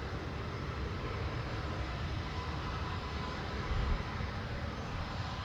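Bombardier Challenger 850's General Electric CF34 turbofan engines running steadily after landing. Wind buffets the microphone with an uneven low rumble and a stronger gust about four seconds in.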